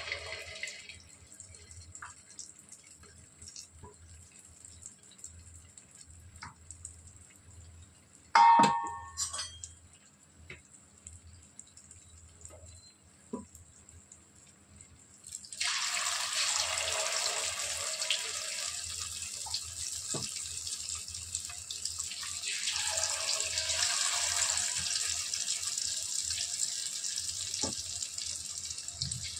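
Marinated chicken pakoda pieces deep-frying in hot oil in a kadai. The sizzle is faint at first, and there is a brief ringing clank about eight seconds in. From about fifteen seconds in, after more pieces go into the oil, the sizzling turns loud and steady.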